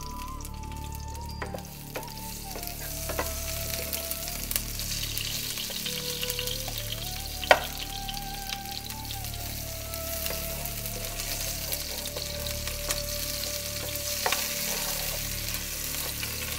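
Sliced onion frying in hot oil, sizzling steadily as it is browned toward dark brown, while being stirred with scattered clicks of the spoon on the pot and one sharp clack about seven and a half seconds in.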